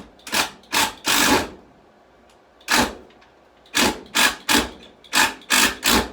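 A power drill driving screws in a string of short trigger pulls, about ten quick bursts in two groups with a pause between them.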